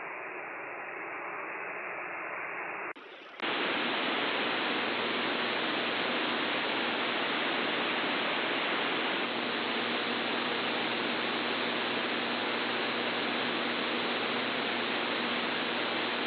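Shortwave AM receiver audio: a steady rushing hiss of static. About three seconds in it cuts out for a moment, then returns louder and brighter.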